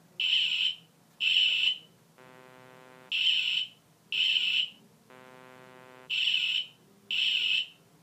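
Arduino-driven piezo buzzer beeping as an alarm: short high-pitched beeps about a second apart, coming in pairs, with a quieter, lower buzzing tone between the pairs. It is going off because the ultrasonic sensor detects something within 30 centimetres.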